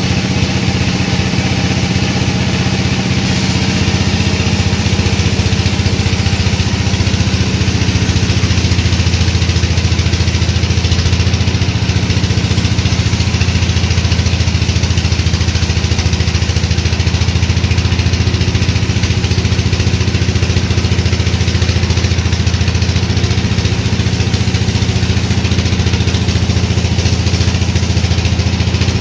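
Sawmill machinery running steadily: a loud, even, low drone of the mill's motor with a broad hiss over it.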